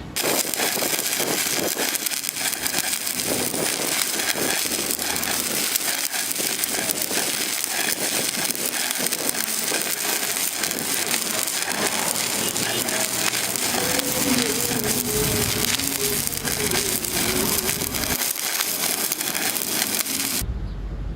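Electric arc welding on a pipe, the arc crackling and sizzling steadily. It cuts off abruptly near the end.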